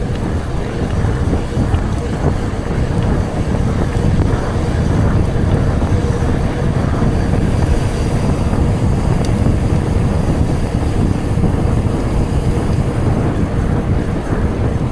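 Steady rushing rumble of a mountain bike being ridden: wind buffeting the microphone mixed with tyre and drivetrain noise, with a faint steady tone running underneath.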